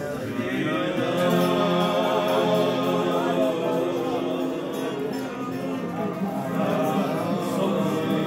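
Men singing a slow Jewish melody together to strummed acoustic guitars.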